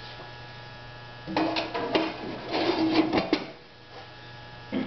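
Sheet-metal cover of a siren timer box being slid and fitted into place, clattering and scraping for about two seconds starting a second in, with some brief metallic ringing. A steady electrical hum runs underneath.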